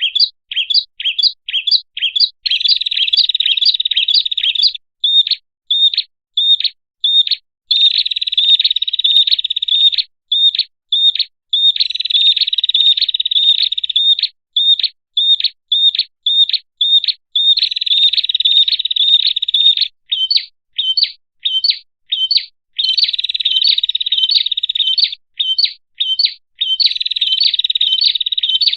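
Bird-lure recording of a small warbler known in Indonesia as prenjak kepala merah (red-headed prenjak). It gives sharp, high chip notes about twice a second, broken every few seconds by fast chattering trills, in a repeating pattern.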